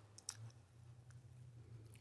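Faint close-up eating sounds of a mouthful of spaghetti in Alfredo sauce: soft wet mouth clicks, one sharper click a little way in, over a low steady hum.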